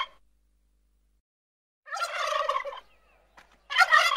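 An animal calling in short bursts with a fast pulsing texture. One call ends just after the start, another of about a second comes near the middle, and a third begins near the end.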